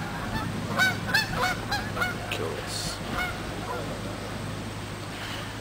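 Waterfowl honking: a run of short, repeated honks, busiest in the first three seconds and thinning out after, over a steady low hum.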